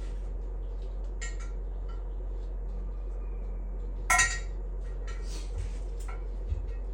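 Small parts being handled on a workbench: a few light clicks, one sharp metallic clink about four seconds in, and some rustling and knocks, over a steady low hum.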